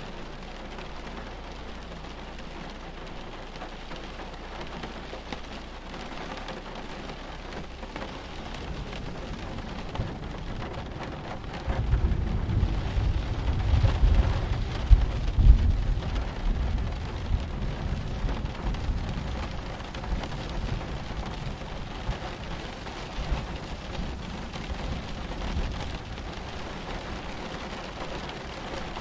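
Steady rain of a thunderstorm, with a long roll of thunder that breaks in sharply about twelve seconds in, is strongest a few seconds later, and rumbles away slowly.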